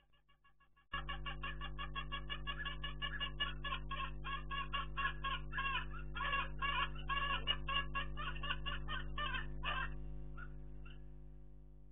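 Poultry calling in a rapid, evenly spaced string of short cackling notes, about five a second, that starts abruptly about a second in and stops shortly before the end. A steady low electrical hum sits underneath.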